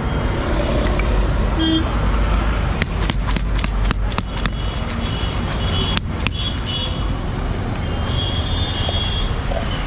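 Steady rumble of busy street traffic, with vehicle horns tooting twice in the second half. Near the middle comes a quick run of sharp clicks and rattles as the mix of puffed rice and chanachur is shaken in a lidded plastic tub.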